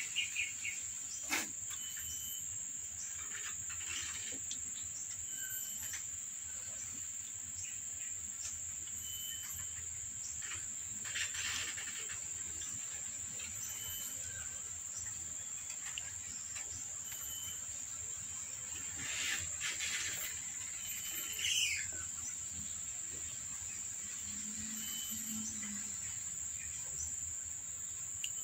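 Steady high-pitched insect chirring, with a few soft knocks and rustles and one short falling high cry about three-quarters of the way through.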